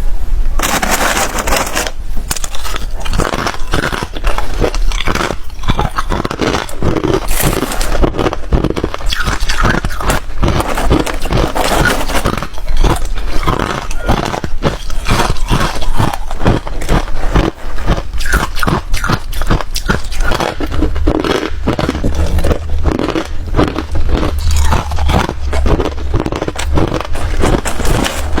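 Hard ice being bitten and chewed: loud, rapid crunches one after another, with barely a pause.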